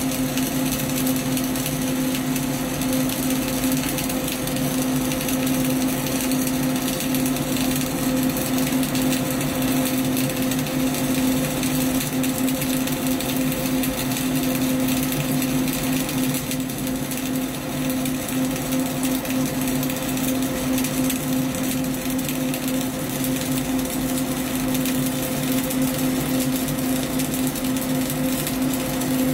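Flux-cored arc welding with CO2 shielding gas: the arc crackles and sputters steadily and without a break as a vertical bead is run, over a steady low hum.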